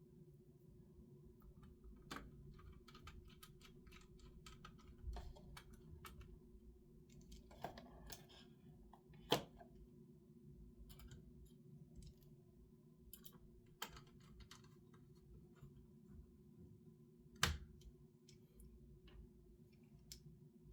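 Faint, scattered clicks and taps of a graphics card's small parts and screws being handled and fitted during reassembly, over a low steady hum. The sharpest taps come about nine and seventeen seconds in.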